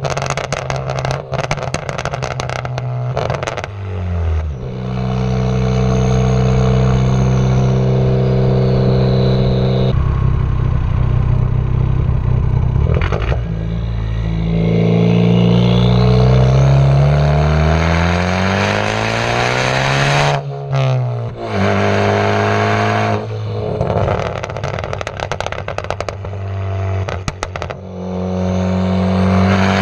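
Ford Focus ST Mk3's turbocharged 2.0-litre EcoBoost four-cylinder through a straight-piped exhaust with a catless downpipe, droning steadily and then revving up in a long rise through the middle. Bursts of popping and crackling come near the start, about two-thirds in and near the end, from a tune set to make them.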